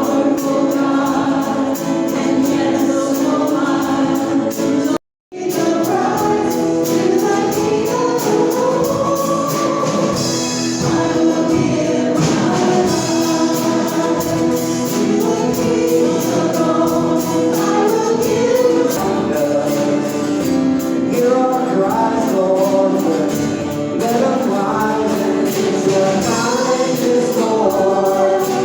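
A church congregation singing a hymn together, many voices in unison, with the sound cutting out for a split second about five seconds in.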